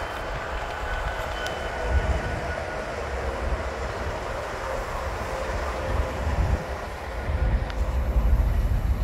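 Union Pacific freight train with diesel locomotives rolling, heard from a car driving alongside it: a steady low rumble mixed with road and wind noise, growing louder near the end.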